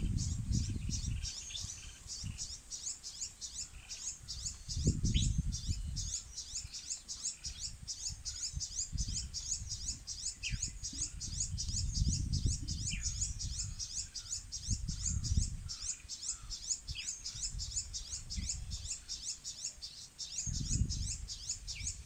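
Outdoor ambience of rapid, evenly repeated high-pitched chirping, with a few short downward-sliding bird calls. Wind buffets the microphone in gusts, loudest at the start, about five seconds in, and near the end.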